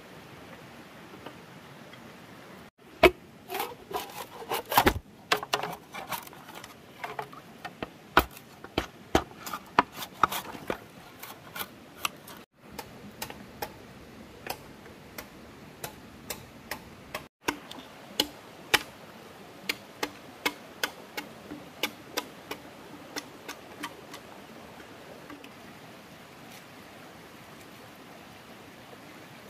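Irregular sharp clicks and knocks, coming thick and fast for several seconds, then spacing out and dying away over a low steady background.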